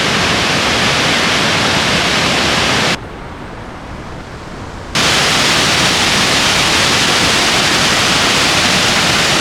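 Shifen Waterfall's falling water: a loud, steady rush of water. About three seconds in it drops suddenly to a quieter rush, then comes back loud about two seconds later.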